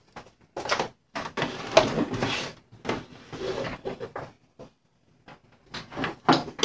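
Handling noises: paper rustling and irregular knocks as a power cord and its plug are moved about on a wooden tabletop, with a few sharp clicks near the end.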